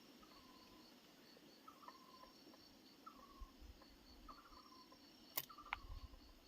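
Faint insect trill, likely a cricket, pulsing about four times a second, with five short falling chirps from another animal spaced about a second apart. Two sharp clicks come near the end.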